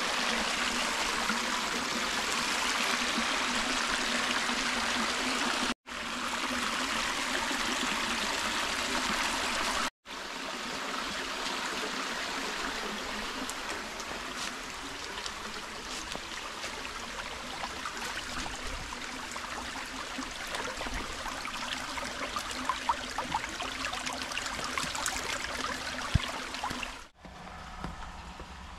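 Water running and trickling at a stone spring basin: a steady rushing hiss. It cuts out abruptly twice in the first ten seconds and drops to a quieter level near the end.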